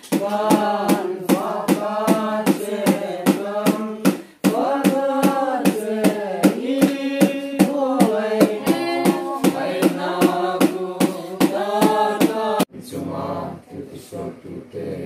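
A small mixed group of men and women singing a hymn together. A sharp, steady beat of strikes keeps time about two to three times a second. Near the end the beat stops and the singing carries on more quietly.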